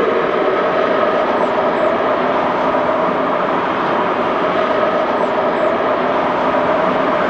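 BLS Re 465 electric locomotive hauling a passenger train past: steady running noise with a whine of a few held tones.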